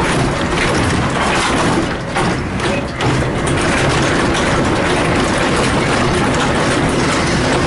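Humvee diesel engine running under load while driving off-road, heard inside the bare metal cabin, with the body rattling over rough ground. The noise is loud and steady, easing briefly about two seconds in.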